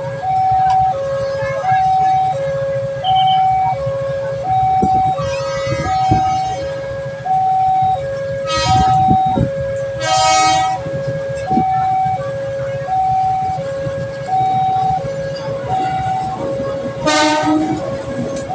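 Railway level-crossing warning siren sounding a steady alternating high-low two-tone wail, about one cycle every second and a bit. Short horn blasts sound twice near the middle and once near the end, over a steady low rumble.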